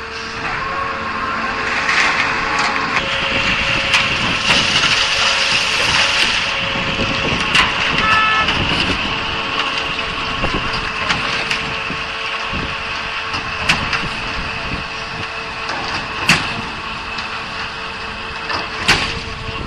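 Diesel concrete mixer pump running steadily under load, with a sharp metallic knock every few seconds.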